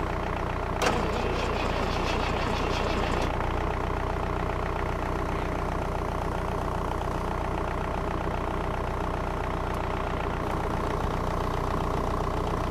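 Ford 302 (5.0 L) fuel-injected V8 of a 1990 F-150 idling steadily just after a cold start in deep cold. There is a single sharp click about a second in. The truck has a bad exhaust leak at the front.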